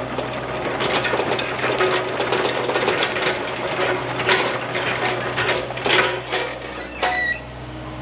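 Excavator working, its engine humming steadily under irregular clattering and knocking; a brief squeal comes about seven seconds in.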